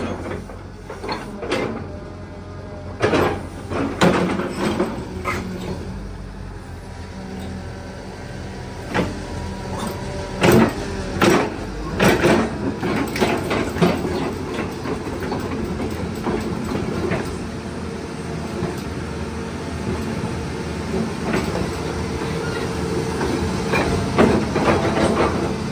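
Caterpillar 315D2 crawler excavator with its diesel engine running steadily while the boom and bucket are worked. Over the engine hum come a dozen or so sharp knocks and clanks, the loudest about ten to twelve seconds in.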